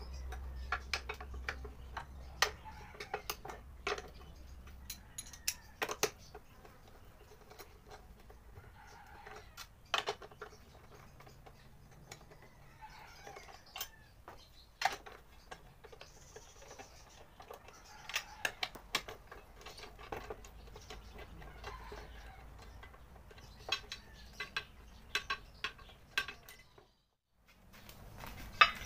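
Scattered metallic clicks and clinks of a socket wrench working the 10 mm bolts that hold a scooter's rear grab bar, at irregular intervals, with a few quicker runs of clicks late on. The sound cuts out briefly near the end.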